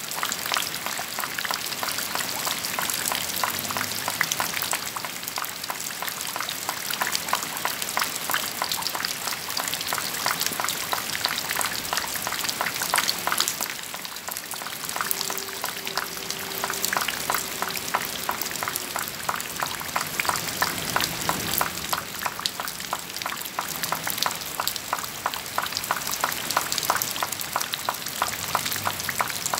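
Steady, dense crackling, like rain pattering or food frying, with a faint held tone for a few seconds midway.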